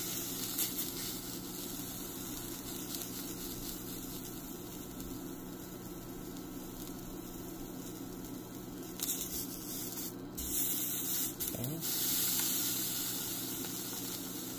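Slice of smoked beef sausage sizzling softly in a dry stainless steel frying pan as its cut edge is browned, with a steady low hum underneath. A few light taps about nine to twelve seconds in.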